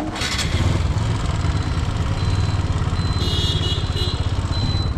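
Motorcycle engine idling steadily, a fast even low throb. A sharp click comes right at the start, and a thin high tone sounds faintly over it in the second half.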